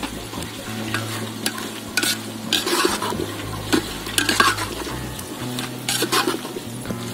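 A stainless-steel perforated ladle stirring vegetables and biryani masala in an aluminium pot, scraping against the metal in irregular strokes, with the vegetables sizzling in the pot.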